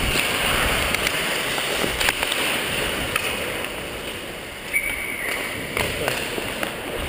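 Ice hockey skates scraping and carving on the ice, with sharp clacks of sticks on the puck or ice. A brief high steady tone sounds about five seconds in.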